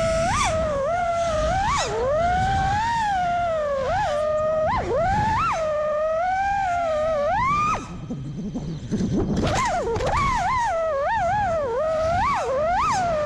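FPV freestyle quadcopter's Brotherhobby Avenger 2207.5 2350kv brushless motors whining, the pitch swooping up and down sharply with each throttle punch and chop. It dips briefly about eight seconds in, then climbs again.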